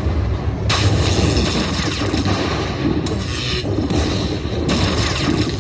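Slot machine game sounds: loud booming effects over a dense wash of noise, shifting abruptly about a second in and again near three seconds.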